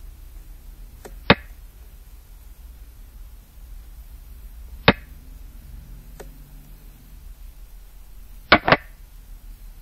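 Xiangqi software's piece-move sound effect: sharp clicks as pieces are placed on the board, one a little over a second in, one near five seconds and a quick double click near the end, with fainter ticks between, over a faint steady hum.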